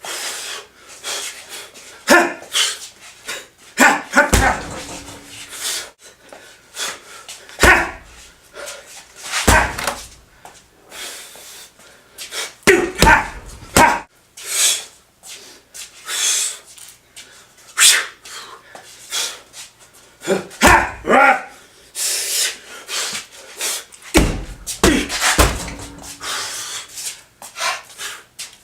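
Punches landing irregularly on a refrigerator weighted with rocks, cement and lead: dull heavy thuds, a few of them ringing briefly, amid many short, sharp, breathy sounds.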